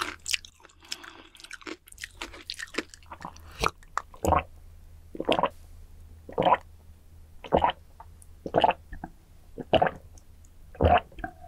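Chewing and small wet mouth clicks, then, from about four seconds in, a person drinking from a glass mug in big gulps, a loud swallow about once a second, seven in all.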